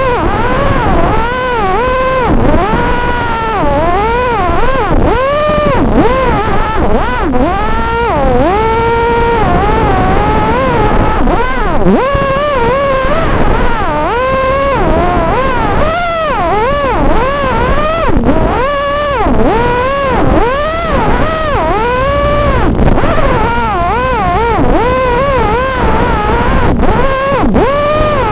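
Brushless motors of a five-inch FPV racing quadcopter (ZMX 2205 2633kv on 5x4 props), their whine rising and falling about once a second with the throttle, as picked up by the craft's onboard video-recorder audio.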